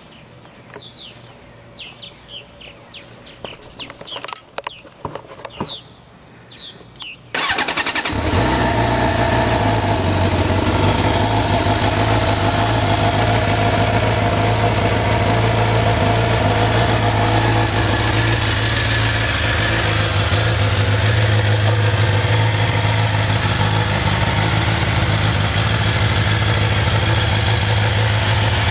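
A Suzuki GSX-R750's inline-four engine, through its stock exhaust, is cold-started about seven seconds in, after a stretch of quiet with a few faint chirps and clicks. It catches at once and then idles steadily.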